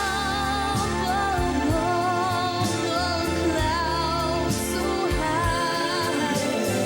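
A pop song with a sung melody, wavering held notes over a band with bass and drum hits.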